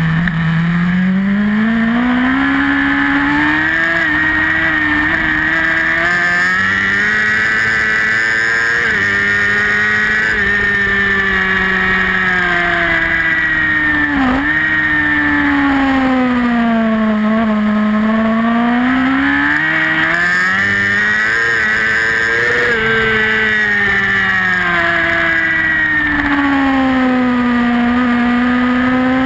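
Racing superbike's engine heard onboard at high revs. Its pitch climbs steadily under acceleration and sweeps down into slower corners, with a brief sharp dip about halfway through.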